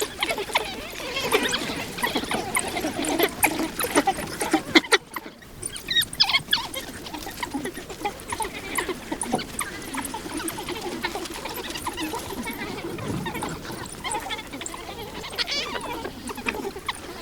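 A pack of African wild dogs (painted wolves) calling together in many rapid, high-pitched twittering yips and squeaks: the pack's greeting and play chatter before a hunt. The calls thin out briefly about five seconds in.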